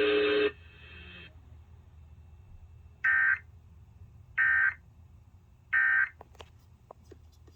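Emergency Alert System end-of-message data signal: three short, loud bursts of warbling digital tones about 1.3 seconds apart, marking the close of the test broadcast.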